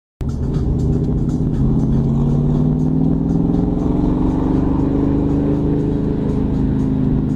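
Car engine pulling the car along, heard from inside the cabin. Its pitch rises slowly over a couple of seconds as it accelerates, then holds steady.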